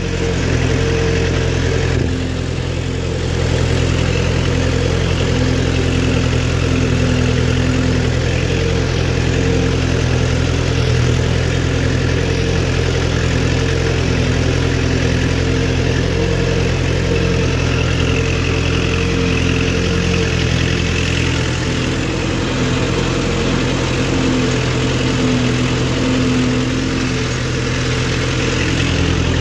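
Kubota MU4501 tractor's four-cylinder diesel engine running steadily at an even pitch while pulling an 11-tine cultivator through the soil. The sound dips briefly about two seconds in.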